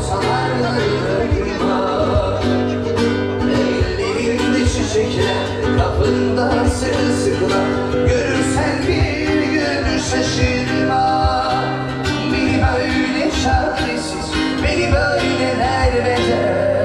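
Live music in a cafe bar: a singer performing with guitar accompaniment, heard across the room.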